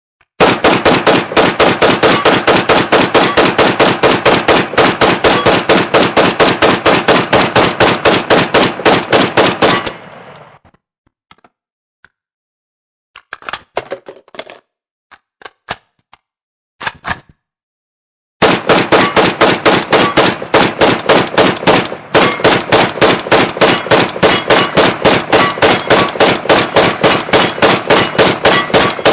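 AK-47 assault rifle firing long strings of rapid automatic shots for about ten seconds. Then come several seconds of metallic clicks and clacks as the rifle is reloaded. Automatic fire starts again partway through and keeps going.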